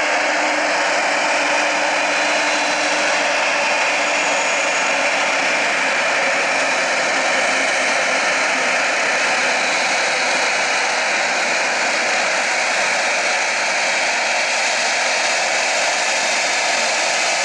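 Aircraft jet engine running steadily: a constant, even rushing noise that holds the same level throughout.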